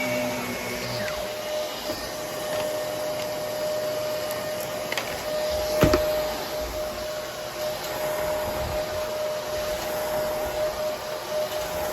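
Vacuum cleaner running steadily with a constant whine, with a single bump about halfway through.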